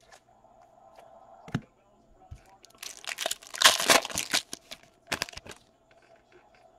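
A foil baseball-card pack torn open by hand, the wrapper crinkling loudly for about two seconds, after a single thump about a second and a half in. A few short crackles follow a little later.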